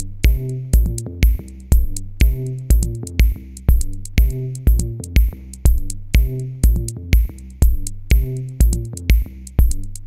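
Electronic background music with a steady drum-machine beat, about two kicks a second, under repeating synthesizer notes.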